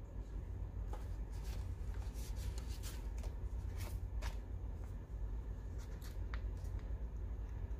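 Paper and stationery being handled on a journal spread: a run of light, crisp rustles and small clicks, busiest in the first half, over a steady low hum.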